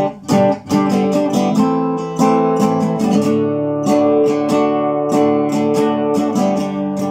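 Nylon-string classical guitar strummed in a quick, steady rhythm of chords, with no singing. The strumming drops out for a moment just after the start, then carries on.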